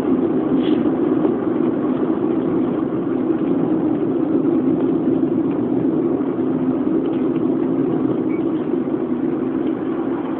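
Steady engine and road noise heard inside a car's cabin while driving, with a low steady hum.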